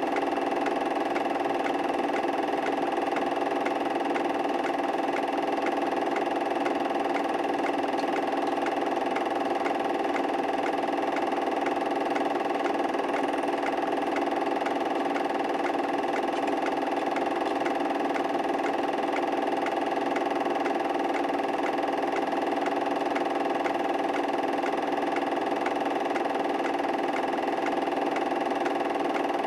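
A steady mechanical hum that stays the same throughout, with no knocks or pin crashes in it.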